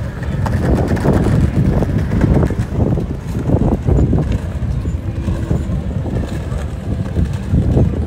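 Wind buffeting the microphone: a low rumble that rises and falls, with people talking faintly in the background.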